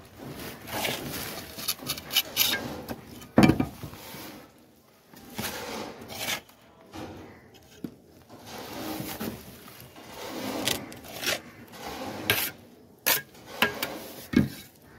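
Steel mason's trowel scraping along cement plaster against a wooden straightedge, cutting a groove in irregular rough strokes with short pauses. A loud sharp knock comes about three and a half seconds in, and another near the end.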